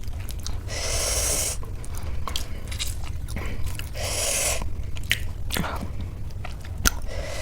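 Close-miked chewing and biting of crispy khasta samosa with ghugni: many small wet clicks and crunches. Three loud breaths are heard, about a second in, about four seconds in and near the end.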